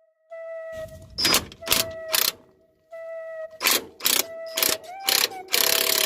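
Hammer blows on a ball joint press, about eight sharp metal strikes, driving a worn lower ball joint out of the steering knuckle. A held electronic music note sounds underneath.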